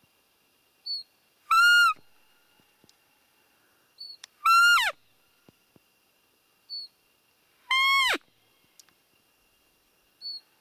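Roe deer lure call blown three times, about three seconds apart: each a short, high, squeaky whistle that holds its pitch and then drops sharply at the end, imitating a doe's call to draw a buck in the rut. Fainter short high chirps sound between the calls.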